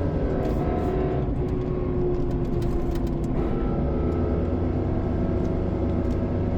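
2016 Chevy Colorado pickup accelerating, with a steady whine of several held tones over the engine and road rumble, the weird noise that comes from around the rear differential whenever the gas is pressed; its cause is unknown to the owner.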